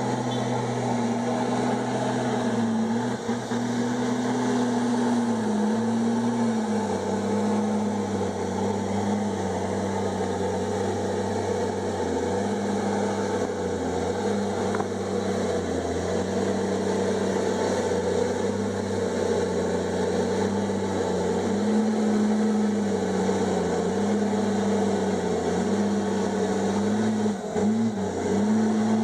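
Komatsu D51EX bulldozer's diesel engine running steadily. Its speed dips briefly and recovers several times: around 6 seconds in, near the middle, and again near the end.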